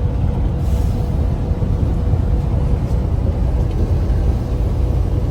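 Steady low rumble of a truck's engine and tyres on the highway, heard from inside the cab, with a faint steady tone above it.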